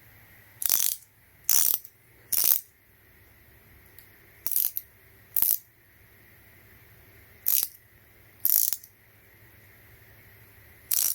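A 13 mm flexible-head ratcheting combination wrench clicking as its ratchet is worked, in eight short spurts of rapid pawl clicks about a second apart.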